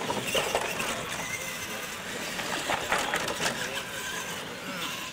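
Radio-controlled monster trucks accelerating down a paved straight-line drag lane, their motors and drivetrains running unevenly with tyre noise and a few sharp clicks.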